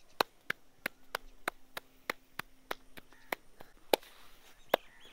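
Missi roti dough being slapped flat between the palms, a sharp slap about three times a second, slowing to a few spaced slaps near the end.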